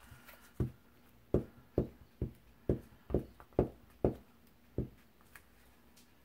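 Glue stick rubbed back and forth over a paper scrap on a cutting mat, making a run of soft knocks about two a second.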